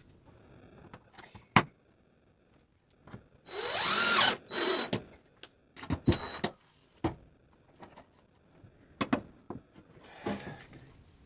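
DeWalt cordless drill running in a few short bursts, its motor pitch rising as it spins up, driving screws into the wall. A sharp click comes about a second and a half in, and knocks and clicks of handling come between the bursts.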